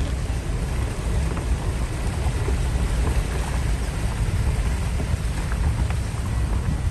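Heavy rain falling steadily, with a constant low rumble underneath and scattered ticks of individual drops.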